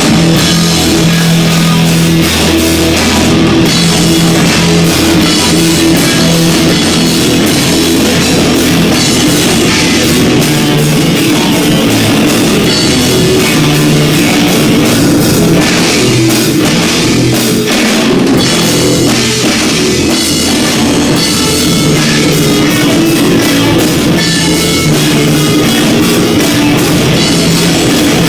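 A live rock band playing loud, with drum kit, bass and electric guitar, recorded on an overdriven phone microphone so the sound is distorted.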